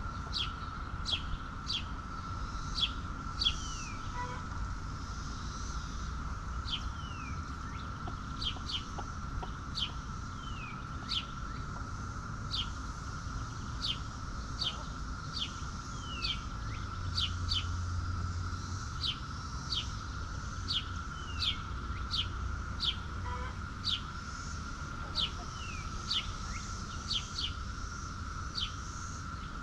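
A small bird calling over and over with short, high chirps that fall in pitch, often in pairs, every second or so.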